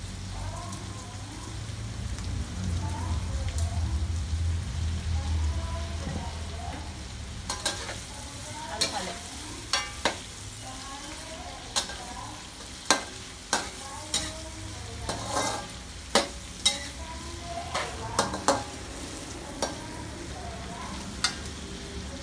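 Whole shrimp frying in butter and garlic in a stainless steel wok, sizzling steadily. For the first few seconds there is also a low rumble. From about a third of the way in, a metal ladle stirs the shrimp, knocking sharply against the wok many times.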